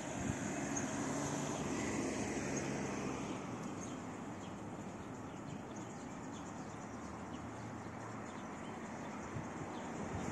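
City street ambience: a steady wash of road traffic with the hum of passing vehicle engines swelling and fading, and a few faint high chirps over it.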